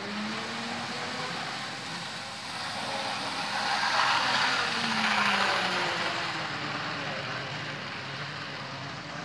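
Small electric model train running along its track, a motor whine with rattling wheel noise that swells as it passes close, loudest about four to five seconds in, then fades.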